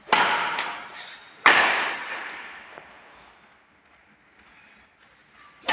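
Badminton rackets striking the shuttlecock in a rally: two sharp cracks about a second and a half apart, each followed by a long echo, with a few fainter ticks between.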